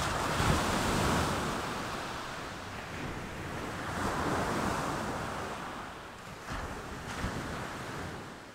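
Ocean surf washing in slow swells, fading out at the end.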